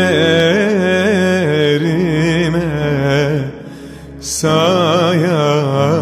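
Background music: a wavering, ornamented melody over a steady low drone. It drops away briefly about three and a half seconds in, then picks up again.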